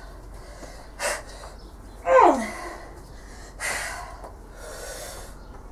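Hard, forceful breaths of someone straining, with a short vocal cry about two seconds in that falls steeply in pitch.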